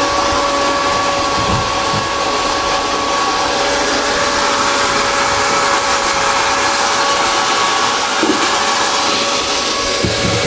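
A small motor running steadily: an even hiss with a constant whine over it.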